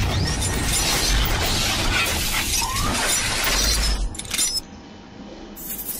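Logo-reveal sound effects: a glass-shattering crash over a deep rumble, dropping away suddenly about four and a half seconds in, leaving faint glittery tinkles.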